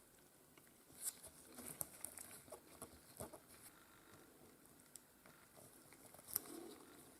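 Faint, scattered small clicks and light scrapes of metal tools handling tiny watch parts, with one sharper click about six seconds in.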